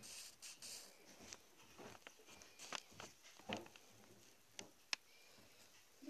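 Faint scratching of drawing strokes on paper, followed by a few light clicks and taps.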